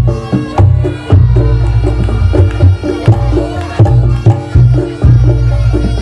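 Reog Ponorogo gamelan accompaniment: hand drums beating a driving, repeating rhythm over struck gongs and pitched percussion, played loud.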